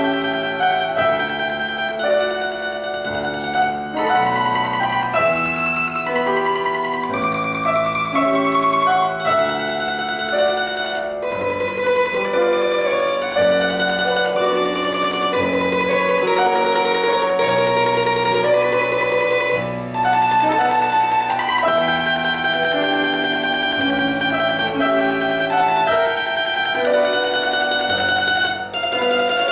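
Instrumental duet music: a plucked string instrument plays a melody of held notes over a lower accompaniment.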